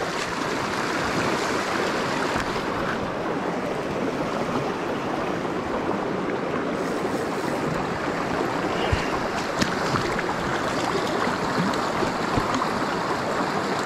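Small freestone mountain creek rushing steadily over rocks and through riffles close by, with a couple of brief knocks about two-thirds of the way in.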